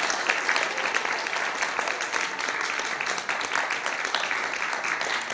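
Audience applause: many hands clapping together at a fairly steady level.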